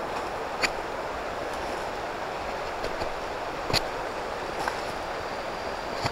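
Steady rushing outdoor noise with a few sharp clicks, the clearest about half a second in and just before four seconds in.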